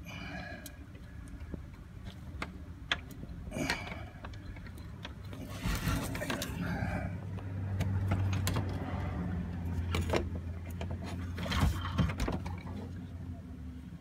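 Metal tools clinking and small clicks from a ratchet wrench being worked on a clutch bleeder screw with a clear bleed hose fitted over it. Rustling handling noise comes in several short bursts, and a low steady hum comes in through the middle.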